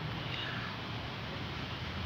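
Steady background rumble and hiss, with a faint brief high sound about half a second in.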